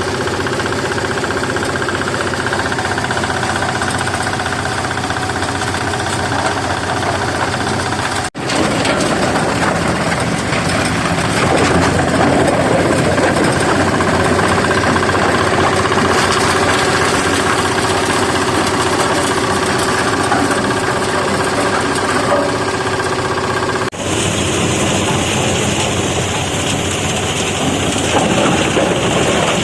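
Market-waste sorting machine for separating plastic from vegetable waste, running steadily with a loud, continuous mechanical noise and a steady hum. The sound breaks off and changes character abruptly twice, about 8 and 24 seconds in.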